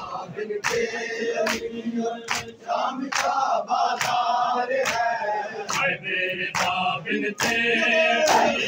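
Crowd of men chanting a noha with chest-beating (matam) in unison, one loud slap about every 0.8 seconds.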